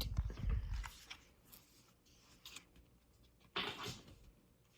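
A quiet room with a low handling bump at the start and one short paper rustle about three and a half seconds in: a picture-book page being turned.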